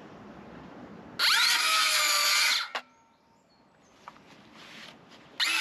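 Cordless circular saw cutting wood in two runs. It spins up with a rising whine and cuts for about a second and a half, stops, then starts cutting again near the end.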